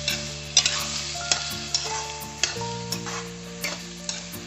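Metal spatula scraping and knocking repeatedly against a metal kadai while stirring spiced peas, carrots, beans and onion frying in oil, with a steady sizzle underneath. Soft background music with long held notes plays along.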